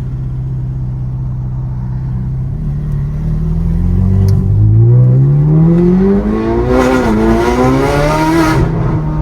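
Ferrari engine with an aftermarket F1-style exhaust running steadily, then accelerating: the pitch climbs for several seconds, dips briefly about seven seconds in and climbs again. A harsh rasp builds at the top of the revs, then the driver lifts off near the end.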